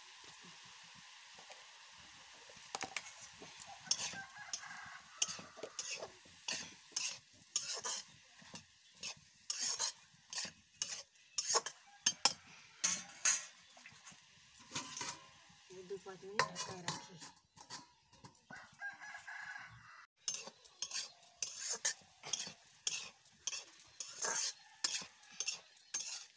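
Spatula scraping and tapping against a metal karahi as vegetables and greens are stirred while they fry, over a low sizzle. A rooster crows about halfway through.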